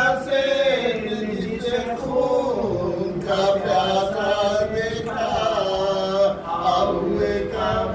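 A man chanting a marsiya, an Urdu elegy, as a slow melodic recitation with long held notes that bend in pitch.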